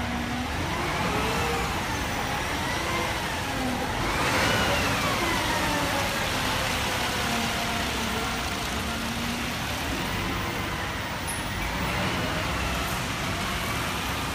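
Fire engine passing with its siren rising quickly and falling slowly several times, loudest about four seconds in, over the truck's running engine and street traffic.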